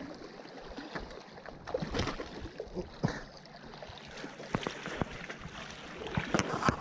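A hooked fish, likely a bartailed flathead, thrashing and splashing at the surface beside concrete breakwater blocks, over a wash of sea water; irregular sharp splashes come and go throughout.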